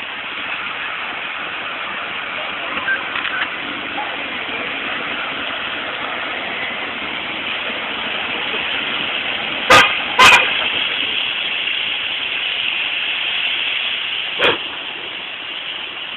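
Vehicle horn sounding two short toots in quick succession about ten seconds in, with a briefer third sound a few seconds later, over a steady hiss.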